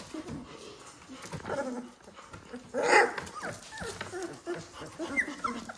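Three-week-old Labrador retriever puppies whimpering and squeaking in many short yips that rise and fall in pitch, with one louder noise about three seconds in.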